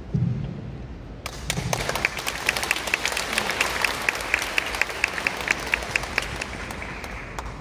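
Audience applauding, beginning about a second in, with single sharp claps standing out, and dying away near the end. A low thump comes right at the start.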